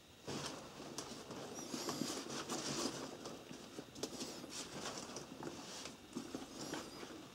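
Handling noise of a nylon business bag: fabric rustling with soft, irregular taps and clicks as gloved hands move its handles.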